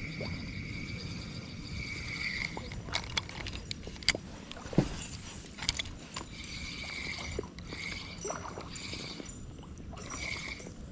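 Float tube on a river: water and wind on the microphone make a low rumble, with a few sharp clicks and knocks in the middle. Over it runs a high, steady insect buzz that comes and goes.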